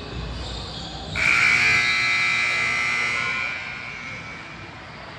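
Gym scoreboard buzzer sounding: a loud, harsh, steady horn tone that starts about a second in, holds for roughly two and a half seconds, then fades out.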